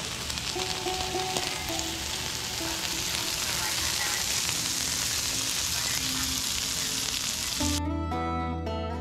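Breakfast hash sizzling and frying on a Blackstone flat-top griddle in a steady, dense hiss. Near the end, plucked guitar music comes in over it.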